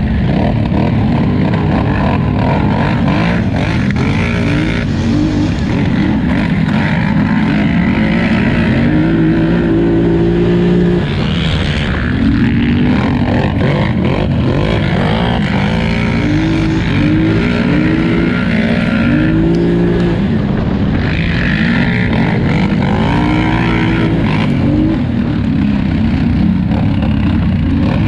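A 2018 Polaris Scrambler 1000 XP's twin-cylinder engine at race pace, its pitch rising and falling over and over as the throttle is worked, over a constant rushing noise.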